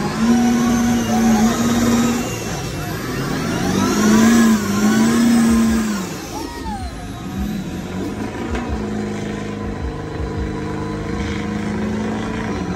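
Truck engines revving hard under load in a tug-of-war pull. They surge to high revs twice, each held for about two seconds, then drop back to lower, steadier running for the rest.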